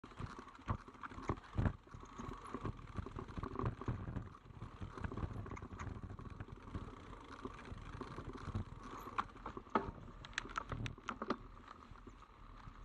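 Mountain bike ridden over rough, technical trail: irregular knocks and rattles from the bike and tyres striking roots and stones, over a continuous low rumble. There is a flurry of sharper knocks near the end.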